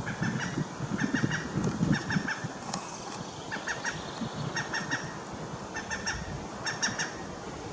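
Birds calling in short clusters of three or four quick notes, the clusters repeating about once a second over a low background rumble.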